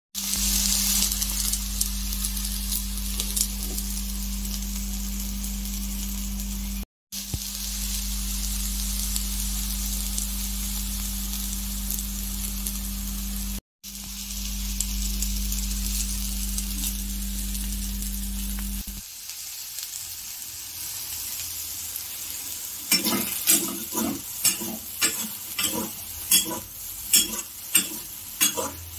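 Soybean and potato fry sizzling in a pan over a gas flame, with a steady low hum, broken by two short dropouts. About two-thirds of the way in the hum stops. Soon after, a metal spatula stirs the soybeans, scraping the pan in regular strokes about twice a second.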